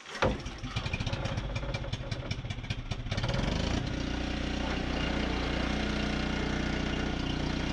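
Portable generator's small engine pull-started on choke: it fires just after a sharp yank, runs unevenly for about three seconds, then settles into steady running.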